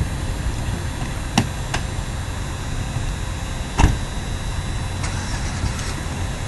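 Steady low rumble of outdoor street noise, with a few sharp clicks and one louder knock about four seconds in.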